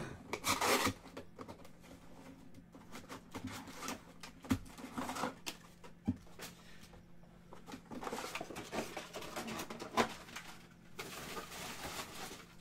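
A cardboard trading-card hobby box being opened and its foil-wrapped card packs lifted out and stacked: rustling and crinkling, with a few sharp taps as packs are set down.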